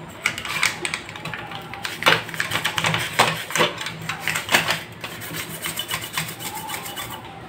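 A monitor's power-supply circuit board being scrubbed clean with a brush and thinner: an irregular run of scratchy rubbing strokes, a few louder ones in the middle.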